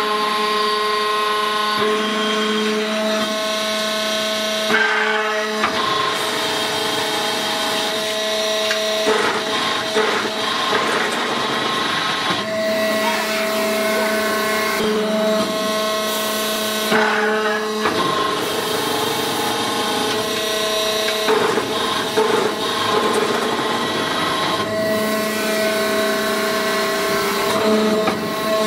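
Hydraulic interlocking brick press running: a steady motor-and-pump whine whose tone shifts every few seconds as the press works through its cycle, with occasional metallic knocks from the mould and ram.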